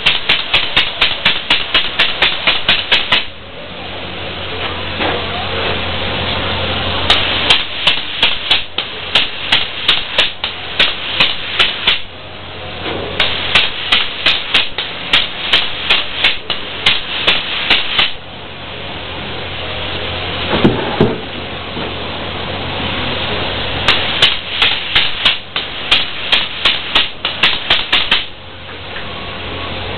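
Spray foam insulation rig running: a steady hiss over a low steady hum. Runs of rapid clicking, about four clicks a second, start and stop several times, each run lasting a few seconds.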